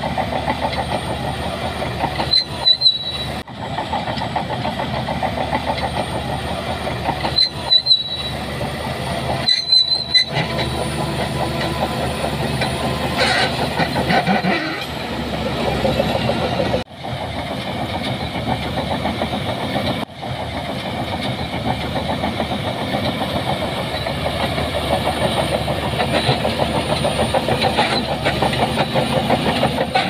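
SHANTUI crawler bulldozer working: its diesel engine runs steadily under a continuous rapid clatter of the steel tracks. Brief high squeals come three times in the first ten seconds, and the sound breaks off for a moment a few times.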